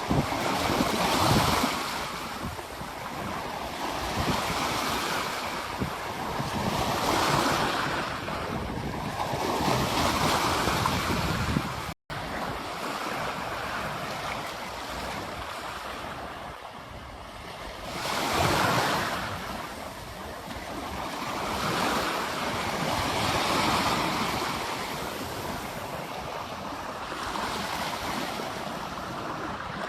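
Ocean waves breaking on a beach: a steady wash of surf that swells and recedes every few seconds. The sound cuts out for an instant about twelve seconds in.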